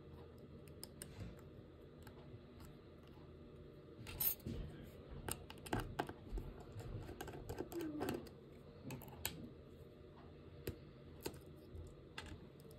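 Computer keyboard clicks: a scattered run of keystrokes, busiest in the middle, over a faint low background hum.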